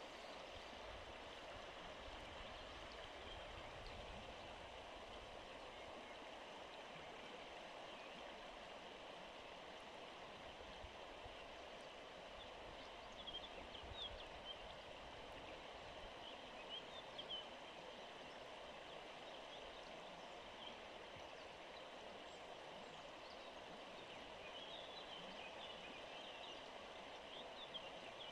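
Steady rush of the Verdon river's water flowing over stones, with a few faint, short high chirps around the middle and near the end.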